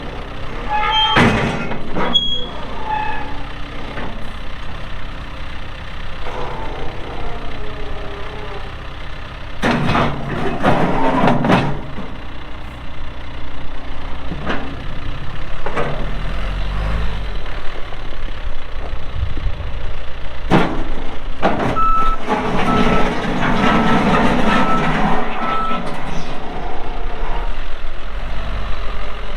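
John Deere 410L backhoe loader working: its diesel engine runs under hydraulic load, with several sharp clanks from the bucket and linkage. Near the end its reversing alarm beeps about five times.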